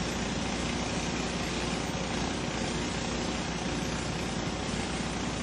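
A steady engine drone, like a small engine idling, holding an even level with a low hum underneath.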